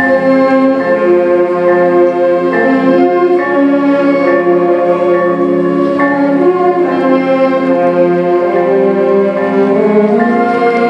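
A junior high concert band of woodwinds and brass playing a slow passage of held chords that change every half second or so.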